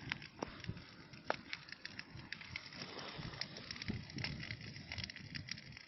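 A burning refrigerator: fire crackling with scattered sharp pops over a low rushing of flame.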